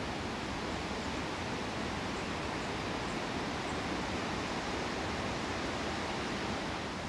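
Steady rushing of the fast-flowing Danube, an even hiss with no rhythm or changes.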